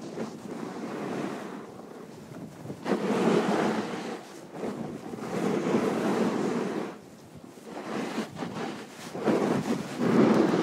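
Wind buffeting a phone's microphone together with the rush of a snowboard sliding over packed snow, surging louder three times as the rider picks up speed and carves.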